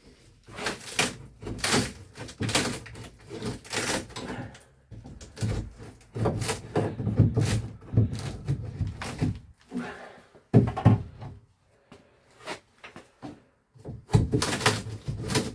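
Irregular knocks, thuds and scraping of hands-on demolition as the old HVAC return and the rotten framing and sheetrock around it are worked loose and pulled out.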